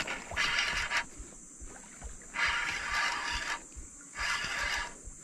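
Water splashing in three surges of about a second each as a hooked giant snakehead (toman) thrashes at the surface while it is being played.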